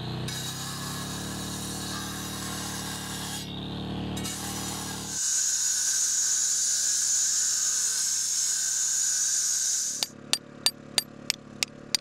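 A power-tool motor runs steadily, then an angle grinder cuts into rock with a loud hiss for about five seconds. It stops suddenly, and a hammer strikes a steel chisel on stone in sharp, regular blows, about three a second.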